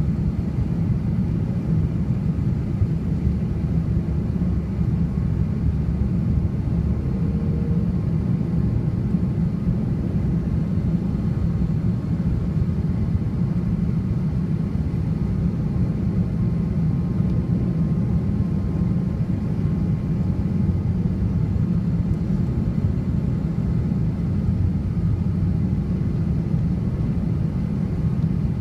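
Steady low rumble of an airliner's jet engines and rushing air, heard from inside the cabin during the descent on approach to landing.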